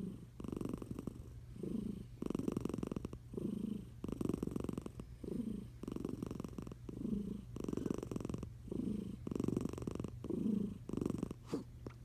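Sleeping tabby cat snoring under a blanket: a rasping flutter on each breath in and out, in a steady rhythm. A brief sharp sound comes near the end.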